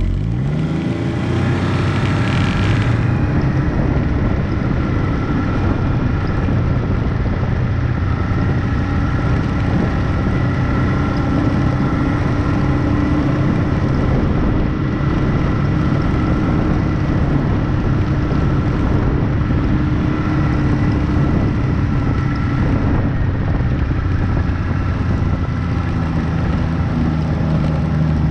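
Snowmobile engine revving up as it pulls away, then running at a steady speed.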